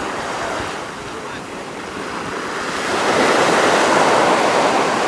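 Ocean surf: a wave breaks and washes up the beach, the rushing noise swelling to its loudest about three seconds in.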